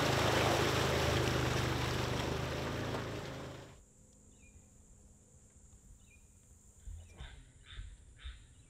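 An off-road vehicle's engine running as its knobby tyre churns through a flooded trail, water splashing loudly. It cuts off suddenly just under four seconds in, leaving faint outdoor ambience with a run of short chirps, about four a second, near the end.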